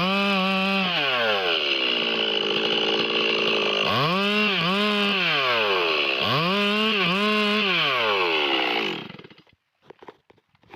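Stihl MS 382 two-stroke chainsaw revving up and down three times, its pitch climbing, holding and falling away each time. It stops about nine seconds in.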